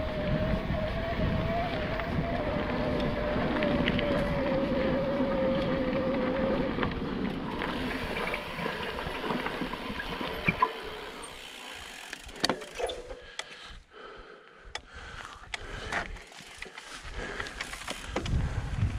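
YT Decoy 29 electric mountain bike rolling down a dirt trail: tyre and wind rumble with a steady, slightly wavering whine for the first several seconds. Then the rumble drops away, leaving scattered clicks and knocks from the bike over rough ground.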